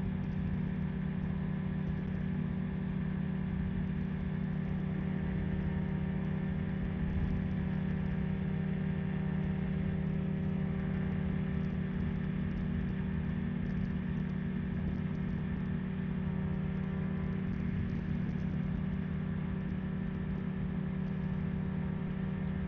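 Ultralight trike's engine and pusher propeller running at a steady, unchanging pitch: a constant drone.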